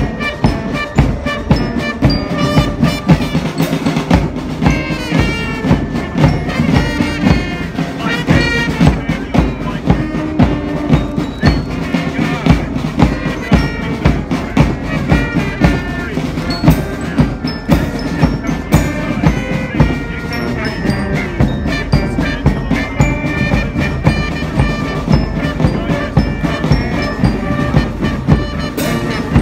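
Band music with a steady drumbeat, bell-like mallet percussion and brass.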